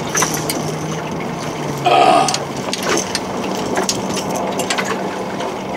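Boat motor running steadily at trolling speed, a low even hum whose pitch shifts about two seconds in. A short, louder sound stands out at that moment over the wind and water noise.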